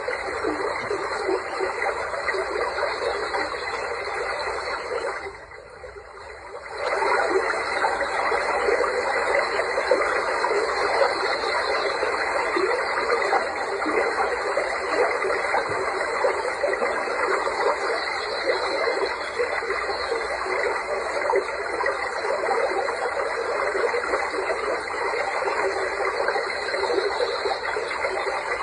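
Running water making a steady rushing, splashing noise. About five seconds in it drops away for a second and a half, then comes back at full level.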